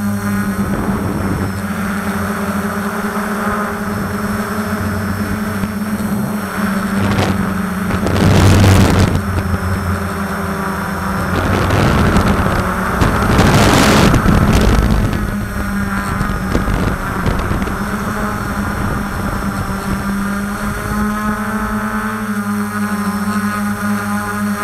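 DJI F450 quadcopter's four motors and propellers droning steadily, recorded close up from a camera on the frame, the pitch shifting a little with throttle. Loud rushing noise breaks in around 8 seconds and again from about 12 to 15 seconds in.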